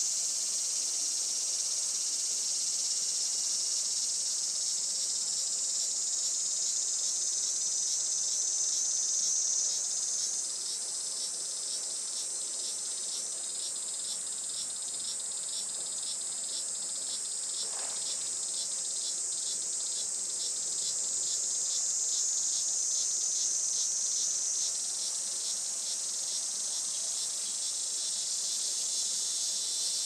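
Cicadas singing in summer woodland: a steady, high-pitched, shrill buzz. From about twelve seconds in until about twenty-five seconds, a quickly pulsing song layers over it.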